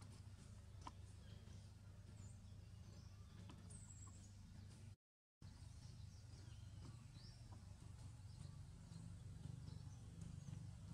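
Faint outdoor ambience: a low steady hum with scattered small bird chirps and short whistled glides. The sound cuts out completely for about half a second around the middle.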